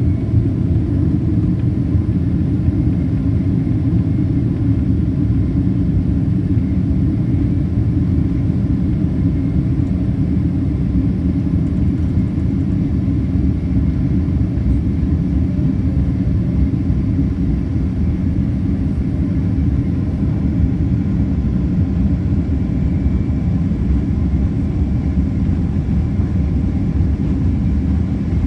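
Steady low rumble of jet engines and airflow inside the cabin of a Boeing 767-400ER on its departure, with its General Electric CF6-80C2 turbofans at high power.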